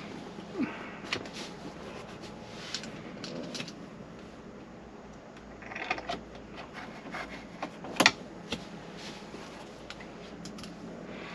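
Scattered clicks, taps and knocks of hand work on a van's plastic dashboard as a head unit is fitted and its screws are put in, with one sharp knock about eight seconds in.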